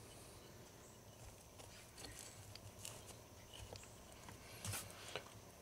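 Faint, scattered light clicks and taps from a speedometer gauge being handled and set face down on paper on a workbench, the loudest tap about five seconds in.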